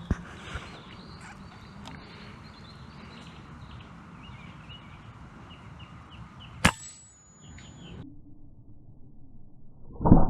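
Two shots from an RTI Priest2 air rifle: a sharp crack at the very start, followed about half a second later by a fainter knock, and another crack about two-thirds of the way in with a brief high ringing after it. Birds chirp throughout in the background, and the sound cuts off abruptly a little later.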